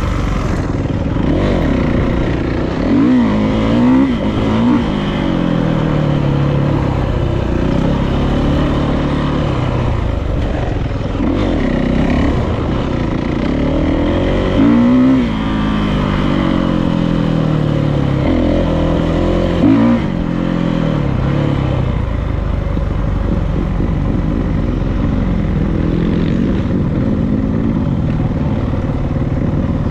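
Dirt bike engine being ridden, revving up and falling back again and again as the throttle opens and closes, the pitch climbing and dropping every second or two. It is loudest about three to five seconds in, around fifteen seconds in, and briefly near twenty seconds in.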